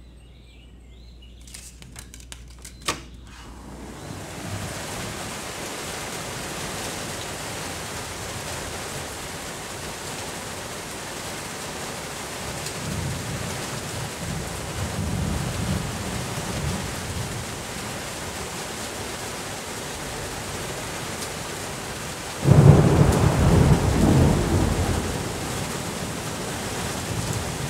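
Thunderstorm: a few clicks near the start, then steady heavy rain with low rolls of thunder. About 22 seconds in a loud thunderclap cracks and rumbles away over a few seconds.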